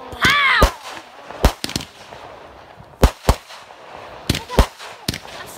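Aerial fireworks going off: about ten sharp, loud bangs at irregular intervals, many of them in quick pairs.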